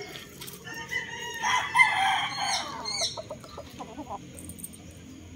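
A gamecock crows once: a single long crow starting about a second in and lasting about two seconds, followed by a few short clucks.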